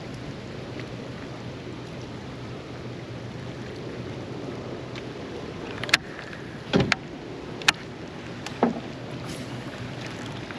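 Steady boat and open-water noise with a low constant hum, broken past the middle by several sharp knocks and clicks, one a deeper thump, like gear being handled against the boat.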